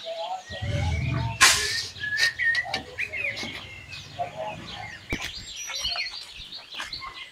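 Several birds chirping and calling in short, quick notes, with a brief rush of noise about a second and a half in.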